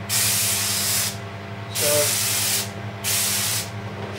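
Gravity-feed spray gun spraying glaze onto a pot in three short hissing bursts of about a second each. The steady hum of a spray-booth extraction fan runs underneath.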